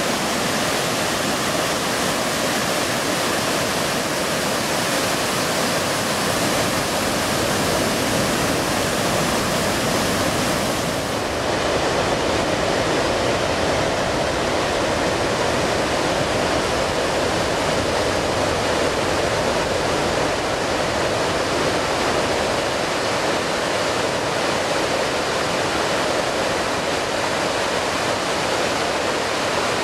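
Flood-swollen river water crashing down rapids and a waterfall, a steady loud rushing noise with no letup. The sound dulls slightly in its upper range about eleven seconds in.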